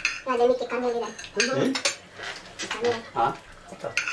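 Knives and forks clinking and scraping on dinner plates during a meal, with voices talking at the table.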